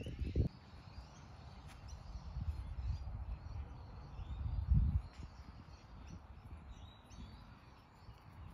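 Outdoor ambience: irregular low rumbling on the microphone, louder about halfway through, with faint bird chirps above it.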